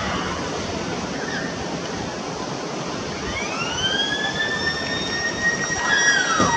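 A sports ground's motor siren winds up over about a second, starting about three seconds in, then holds a steady tone and begins to wind down near the end. Under it runs a steady rushing background noise.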